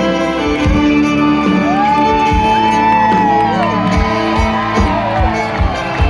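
Live country band playing, with sliding fiddle or vocal lines over guitar and a steady drum beat.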